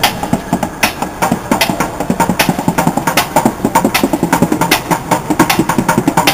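Street drummer playing a fast, dense rhythm of sharp stick strikes on upturned plastic buckets.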